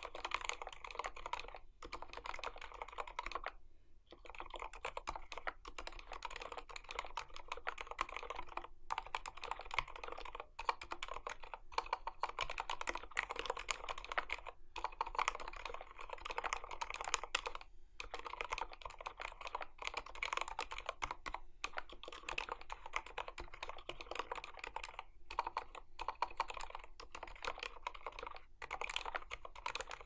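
Continuous fast typing on a KBD75v2 75% aluminium-cased keyboard fitted with lubed Gateron Ink Silent Black linear switches. Each keystroke gives a dampened, soft bottom-out without the sharp, high-pitched clack of a normal linear, though the board is still kinda loudish. There are a few brief pauses in the typing.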